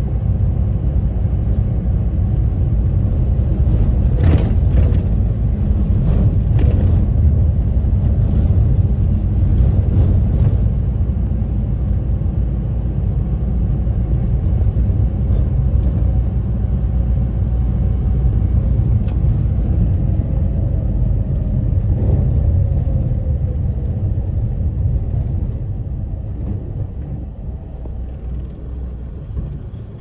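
Inside a route bus on the move: steady low engine and road rumble, with a few brief knocks and rattles in the first ten seconds. The rumble grows quieter over the last few seconds.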